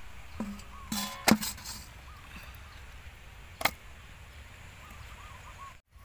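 Live frogs being handled in a plastic bucket and a metal bowl: a few sharp knocks, the loudest about a second in and another about three and a half seconds in.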